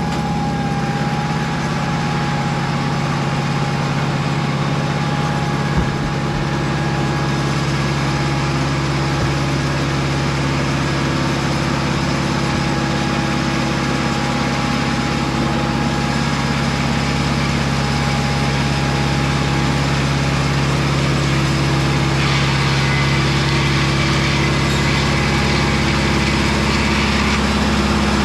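Mobile Dimension circular-blade sawmill running with its engine going steadily throughout, slightly louder toward the end, with an added higher hiss for a few seconds late on.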